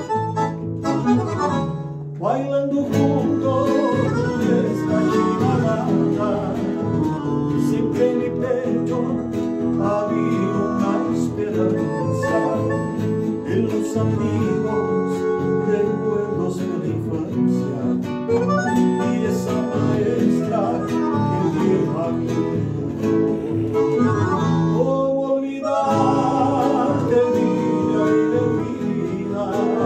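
A Roland digital accordion and an acoustic guitar playing a folk tune together, with brief pauses about two seconds in and again near the end.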